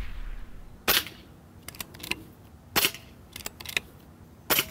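A .22 Diana Outlaw pre-charged pneumatic air rifle, with a shrouded barrel and moderator, fires three shots about two seconds apart. Between the shots come fainter mechanical clicks from its side lever being cycled to load the next pellet.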